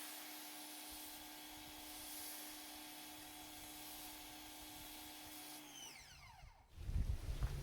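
Ryobi 1900 PSI electric pressure washer running with the hiss of a foam cannon spraying, then the motor winding down with a falling whine about six seconds in as the trigger is released. A louder low rumble sets in near the end.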